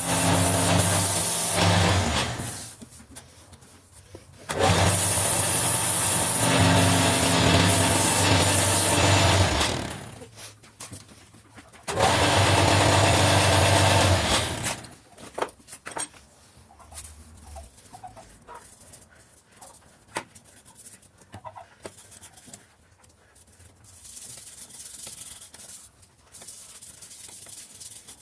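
Wood lathe at work on a wooden candlestick: three loud stretches of tool or abrasive rubbing on the spinning wood over a steady motor hum, each starting and stopping fairly sharply. After that come only scattered light clicks and handling sounds.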